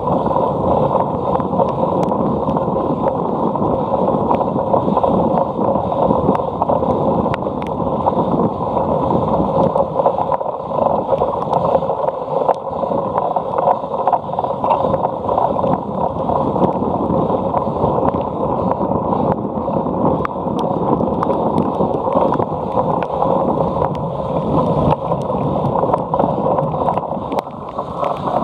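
Wind rushing over the microphone of a camera riding along on a racing cyclocross bike. It is a steady, muffled rush, with many small clicks and rattles from the bike running through it.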